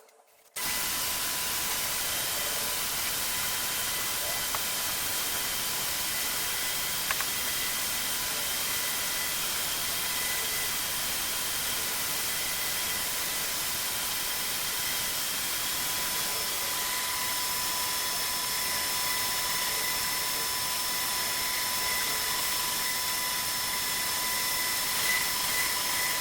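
Electric floor sander running steadily while fine sanding a wooden floor: a constant loud hiss with a high, steady motor whine. It starts abruptly about half a second in.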